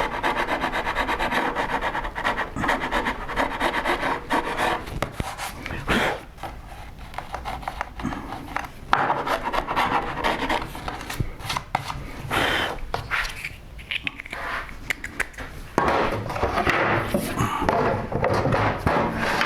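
Steel chisel scraping dried wood glue off oak sled runners in quick rasping strokes, steady at first, then in irregular bursts with short pauses.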